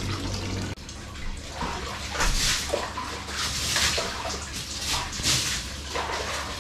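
Water splashing in an open-air hot-spring bath, in uneven surges about once a second over a faint steady trickle.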